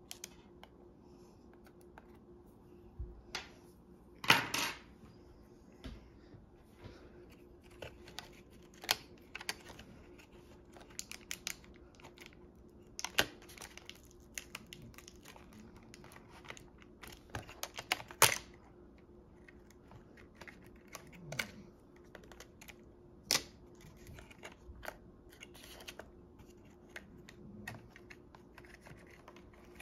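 Irregular clicks and taps of hands and a plastic pry tool handling the opened Lenovo ThinkPad X240 laptop: plastic and metal parts clicking as the keyboard and internals are pressed and worked. The loudest clicks come about 4 seconds in and again around 18 seconds in, over a faint steady hum.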